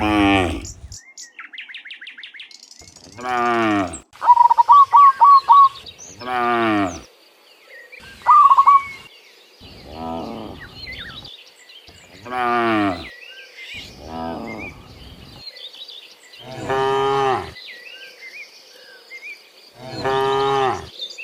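Cattle mooing again and again, about eight drawn-out moos of a second or so each that fall in pitch, some deep and some higher. Loud bursts of bird chirps come between the moos, about four seconds in and again near nine seconds.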